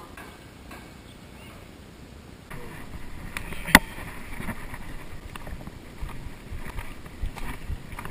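Footsteps on a stony dirt path, an uneven crunching with small knocks, beginning about two and a half seconds in, with one sharp click a little later.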